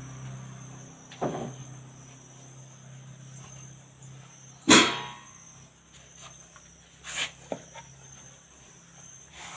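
A few scattered knocks and clicks of household handling, the loudest about halfway through, with little else between them.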